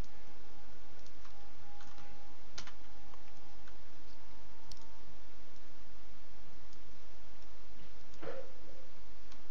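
A few scattered computer mouse clicks over a steady background hiss.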